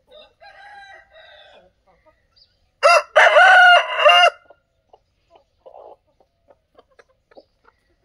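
A rooster crows once, loudly, for about a second and a half near the middle. Faint clucking from chickens comes before it.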